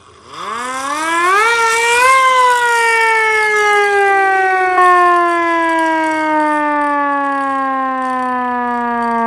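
Hand-crank siren wailing. Its pitch rises steeply over about two seconds, then slowly sinks as it winds down.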